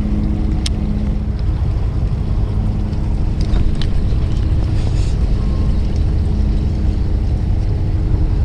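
Fishing boat's engine running with a steady low rumble, with a few faint clicks over it.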